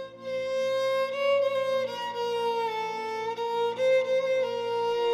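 Background music: a slow violin melody of long held notes, moving to a new note about every second.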